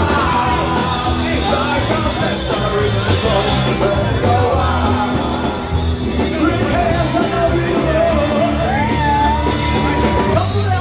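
Live rock band playing with a lead singer, drums and bass driving underneath; near the end the singer holds one long note.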